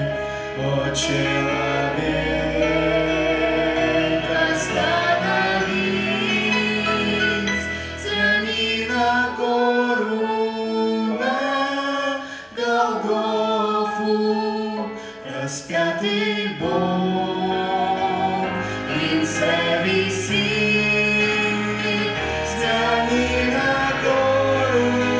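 Christian song: singing with choir-like backing vocals over sustained bass notes, with a few sharp percussion hits. The bass drops out for several seconds in the middle, then returns.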